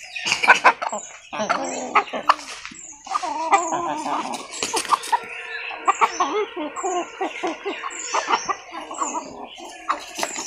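Domestic chickens, roosters and hens, clucking and calling, with a high, short, falling chirp repeated over and over.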